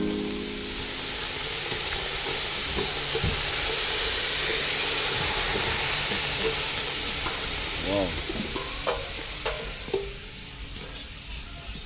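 Shredded cabbage and carrots sizzling and steaming in a metal pot over a wood fire, a steady hiss. A few metal clinks come about eight to ten seconds in as a metal bowl is put over the pot as a lid, and then the hiss drops.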